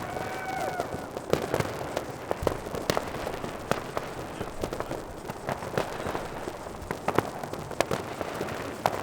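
New Year's Eve fireworks going off all around: sharp firecracker and rocket cracks at irregular intervals, several in some seconds, over a steady hiss of more distant bangs.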